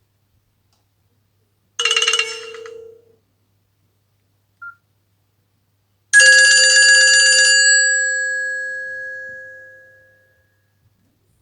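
Nokia C5-00 mobile phone tones played one after another: a short chime about two seconds in, a brief blip near five seconds, then a louder bell-like chime about six seconds in whose tones ring on and fade away over some four seconds.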